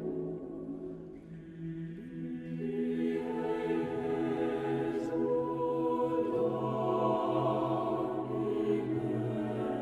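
Choir singing slowly, voices holding long chords that move to new notes every second or two.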